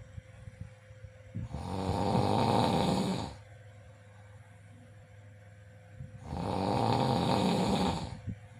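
Snoring: two long snores, each about two seconds, a little over four seconds apart, with quieter breathing between.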